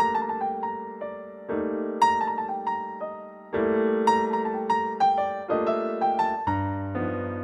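Background music: electric piano playing sustained chords that change about every two seconds, with a light melody of struck notes over them.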